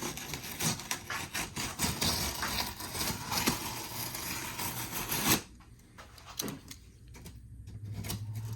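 Packaging being handled and opened: rapid rustling and clicking that stops suddenly about five seconds in, followed by a few fainter taps and handling noises.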